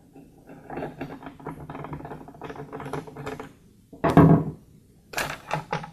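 Screwdriver backing out the screws of a Husqvarna chainsaw's plastic top cover: about three seconds of quick small clicks and scrapes. Then a louder plastic knock a little after four seconds as the cover is lifted off, and a few more clicks near the end.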